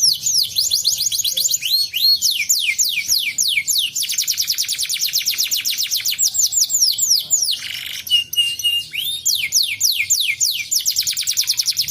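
Canary singing a long song of rapid trills: fast runs of high notes, each sweeping downward, about ten a second. A short, level whistled note comes about eight seconds in.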